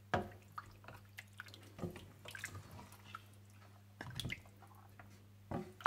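Mutton pieces and water being stirred with a wooden spatula in a stainless steel pot: irregular wet squelches and light knocks, a few louder than the rest, over a faint low hum.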